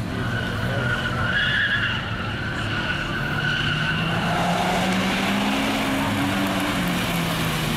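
A Subaru Impreza WRX and a Hyundai coupe racing around a track. Tyres squeal in the first couple of seconds, then an engine note climbs steadily under acceleration and eases off near the end.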